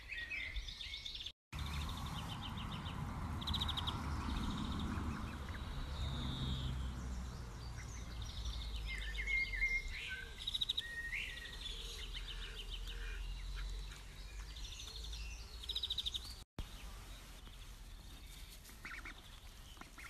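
Ducks calling among small birds' rapid chirping trills, over a low rumble. The sound drops out completely twice for a moment.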